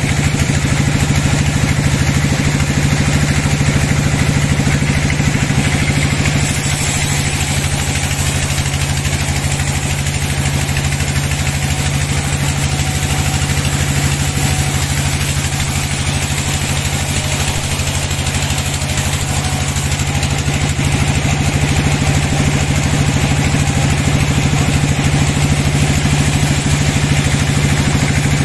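Sawmill band saw running steadily and cutting lengthwise through a large log: a constant machine hum with an even hiss from the blade in the wood.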